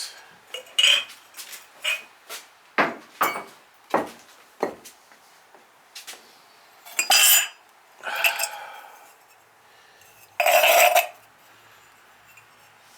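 Glaze-fired ceramic mugs and tankards clinking together as they are handled and set down, a quick run of sharp clinks, then three louder rough scrapes of pot bases sliding over a hard surface, the last the loudest.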